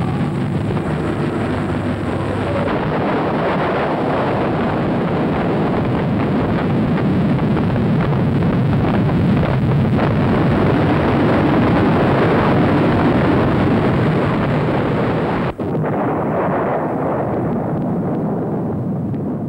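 Long, heavy rumble of a large marble block toppling over the quarry face and crashing down with sliding rubble. It holds steady for about fifteen seconds, breaks off for an instant, then fades away.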